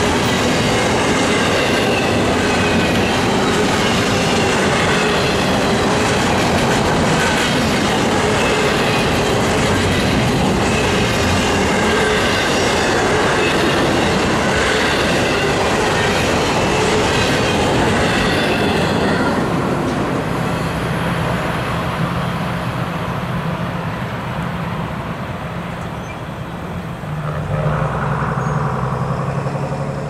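Freight train's empty double-stack intermodal well cars rolling past, with steady wheel rumble and clatter over the rail and a faint high wheel squeal. The sound drops somewhat about two-thirds of the way through, leaving a quieter rolling noise with a low steady hum, and it rises again briefly near the end.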